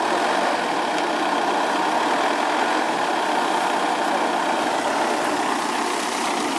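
Off-road 4x4 engine running steadily at a low, even speed.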